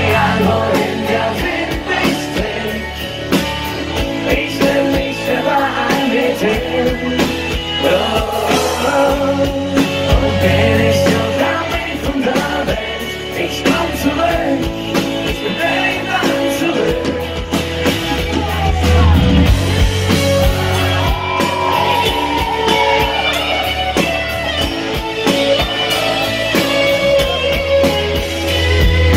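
Live rock band playing a song with drums, electric guitar and singing, amplified over a PA.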